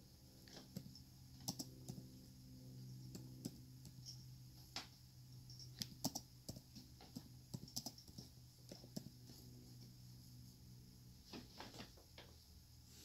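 Near silence: faint room hum with soft, irregular clicks and taps scattered throughout.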